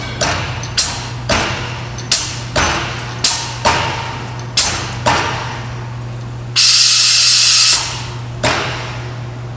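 Graco T1 air-operated drum transfer pump cycling slowly just after being turned on: sharp exhaust pops about twice a second, each trailing off in a hiss, while it pushes the old chemical still in the line out through the hose. Near the end comes a loud steady hiss of air lasting about a second.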